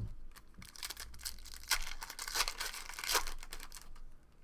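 Foil wrapper of a trading card pack being torn and crinkled in the hands, in a burst of rustling that peaks midway and tapers off near the end.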